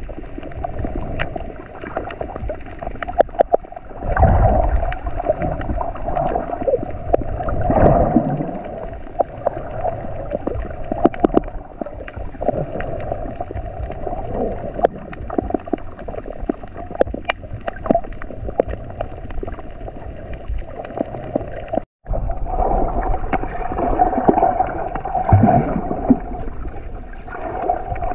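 Underwater sound picked up by a submerged camera: a muffled water rush and gurgling, with many scattered sharp clicks and a few low surges. It cuts out for an instant about three quarters of the way through.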